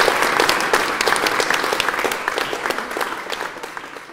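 Audience applauding, a dense patter of hand claps that thins and fades out near the end.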